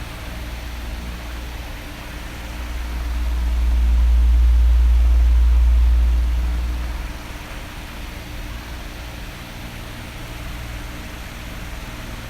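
Electric bedroom fan running: a steady whooshing airflow with a faint motor hum. A low rumble swells about three seconds in, holds for a few seconds and fades away again, as an oscillating fan's airflow passes over the microphone.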